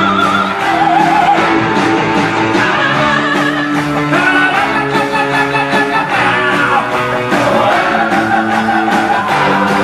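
Rock song playing, with a singer's voice over guitar and a steady beat.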